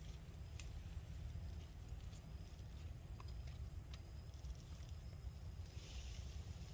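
Quiet forest ambience with a steady low rumble on the microphone and faint steady high tones, broken by a few small scattered clicks and a brief rustle of leaves near the end as the infant macaque climbs onto the branch.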